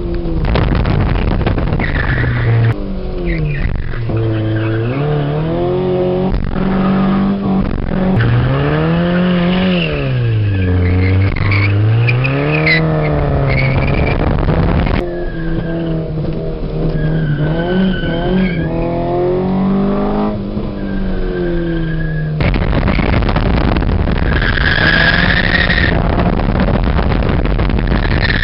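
Fiat Cinquecento's 1.2 16V engine under hard track driving, its pitch climbing under acceleration and dropping back again and again through gear changes and corners. Tyres squeal through the corners, most clearly in the second half.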